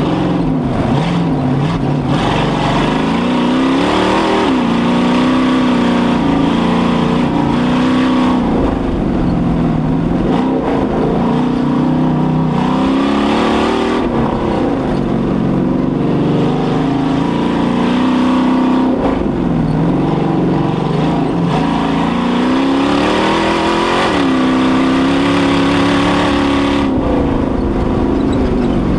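A 560 hp race Jeep engine running through Dynomax race bullet mufflers, heard from inside the cab. Its revs climb and drop back again every few seconds as the driver accelerates hard and lifts for the turns.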